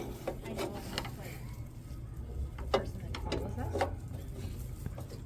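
Hand tools working on a small lawnmower engine: scattered metallic clicks and knocks as he tries to loosen a part near the carburettor.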